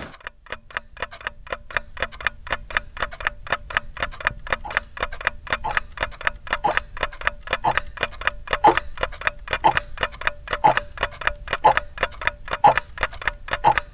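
Clock ticking fast and evenly, several ticks a second, with a stronger tick roughly once a second.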